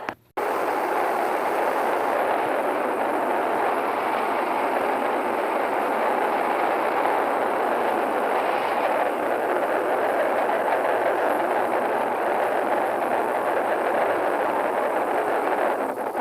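A train running along the track, a steady, even rushing noise that cuts in abruptly just after a brief silence.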